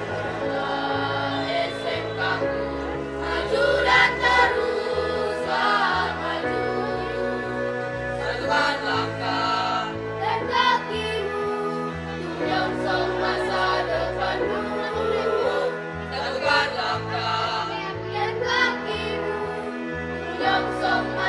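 A student choir singing a song together, with sustained sung notes over a steady instrumental accompaniment.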